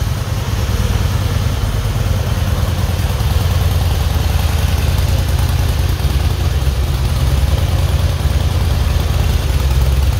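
Harley-Davidson V-twin motorcycle engine idling steadily with a low, even pulse.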